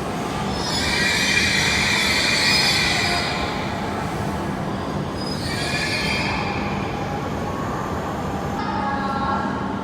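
Shinkansen train moving slowly along the platform, with high-pitched squealing tones for a couple of seconds near the start, again about six seconds in, and a lower whine near the end, over a steady hum.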